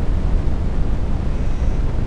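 Steady low rumbling noise with a fainter hiss above it.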